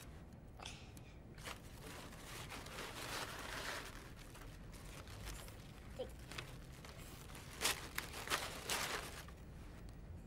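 Thin wrapping paper crinkling and rustling as it is folded by hand around a hat, with a few short, sharp rips and clicks in the second half.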